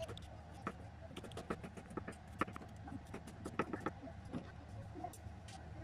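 Chef's knife chopping green peppers on a wooden cutting board: sharp, uneven knife taps about twice a second. In the second half there is a scraping sound of the wooden cutting board.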